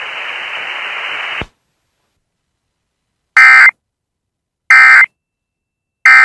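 Radio feed hiss cuts off about a second and a half in. Then come three short, identical screeching data bursts about a second and a third apart: the Emergency Alert System end-of-message (EOM) code, sent as two-tone digital data, which signals that the alert has ended.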